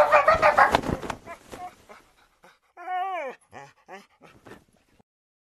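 French bulldog whining and whimpering in quick, loud cries that fade over the first two seconds, then one yelp falling in pitch about three seconds in, followed by a few short, soft whimpers.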